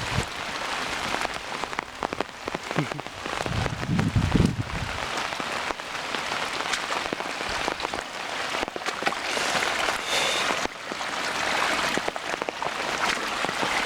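Steady rushing of a flooded creek running high, with scattered small clicks and a low thump about four seconds in.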